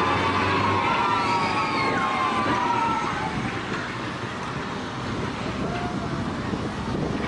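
Historic tramcar's steel wheels squealing on the rails as it passes close by: several shrill, wavering tones that glide slightly over about the first three seconds. After that comes quieter street and traffic noise.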